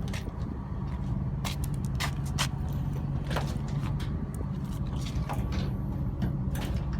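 A vehicle engine idling steadily with a low rumble, over which come scattered sharp clicks and knocks.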